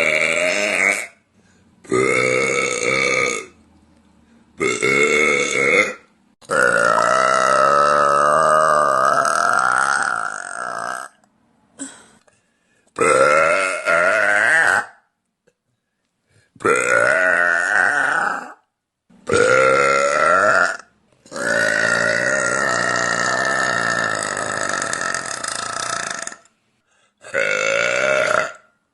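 A woman burping loudly, about ten burps in a row with short silent gaps between them. Most last one to two seconds, and two are long, drawn-out belches of four to five seconds with a wavering pitch.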